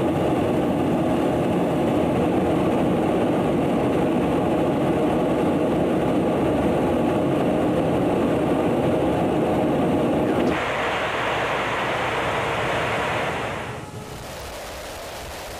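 Steady rushing noise of aircraft in flight, engine and airflow together. About ten and a half seconds in it switches abruptly to a higher, hissier noise, and near the end it drops to a quieter steady rush.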